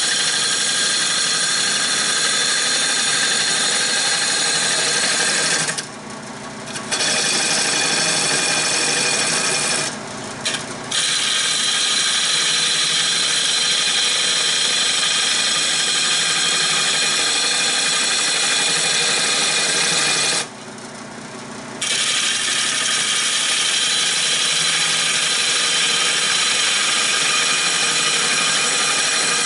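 A gouge cutting a spinning redbud blank on a Nova 16/24 wood lathe: a steady hissing cut over the lathe motor's whine. The cut stops three times, about 6, 10 and 21 seconds in, briefly leaving the quieter motor.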